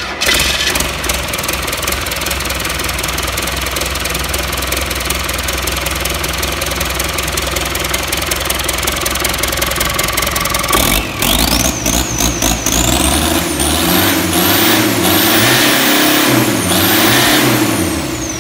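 Four-cylinder turbodiesel engine run on a stand without its engine electronics: it has just caught and runs steadily, then from about 11 seconds in it is revved several times, with a turbo whine rising and falling with each rev.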